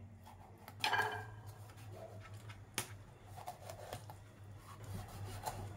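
Kitchen knife scoring a whole red tilapia on a cutting board: faint slicing through the scaled skin, with a couple of sharp taps of the blade on the board, about a second in and near three seconds, over a low steady hum.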